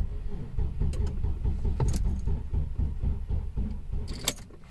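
2001 Audi S4's 2.7-litre twin-turbo V6 being cranked by the starter motor: a rhythmic chugging for about three and a half seconds that stops near the end without the engine catching. A first start attempt after months of sitting, on a freshly charged battery and little fuel.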